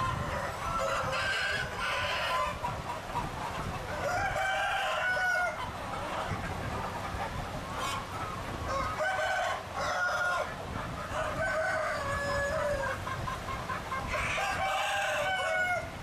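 Roosters crowing, about five long crows one after another, over the steady clucking of a large, crowded flock of chickens.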